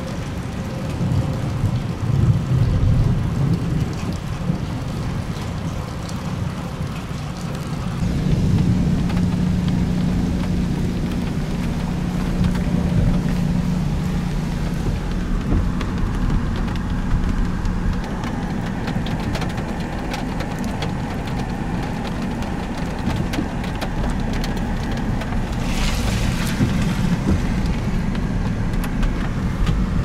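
Rain striking a car over steady engine and road noise. A low hum grows stronger about eight seconds in and eases off around eighteen seconds.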